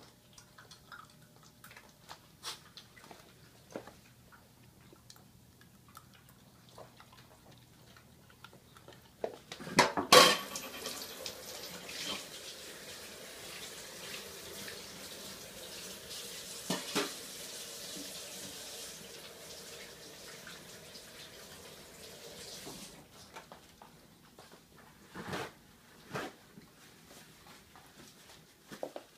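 Kitchen tap running into a sink for about thirteen seconds, starting with a loud clatter of dishes. Scattered light clicks and knocks come before and after it.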